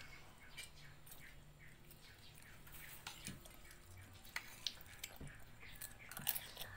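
Children eating rice by hand and spoon from plastic plates: quiet chewing and lip-smacking with scattered small clicks and taps against the plates, a few sharper taps in the second half.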